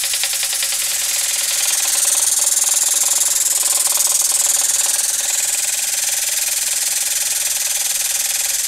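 Air-driven pump of an 8-ton air/hydraulic long-ram jack running steadily with a hiss of air and a rattle as it pushes a shop crane's boom up. The rattle is put down to loose mounting bolts on the ram, which tightening should reduce.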